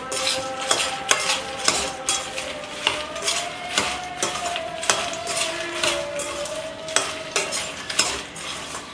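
A metal spoon stirring roasted phool makhana (fox nuts) in a stainless steel pan, scraping and clattering about twice a second, with a light sizzle of hot ghee under it.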